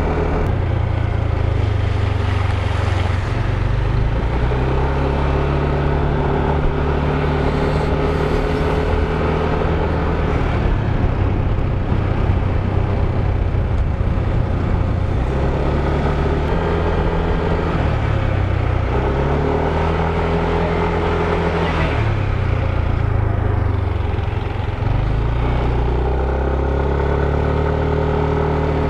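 Motorcycle engine running under way, heard from the bike itself. Its note shifts up and down several times with the throttle, over a steady rush of noise.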